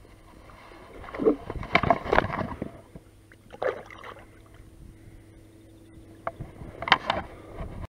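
Water splashing as a pike is held in the lake beside a boat and released, in three short bursts: a longer one about a second in, a brief one near the middle and a sharp one near the end.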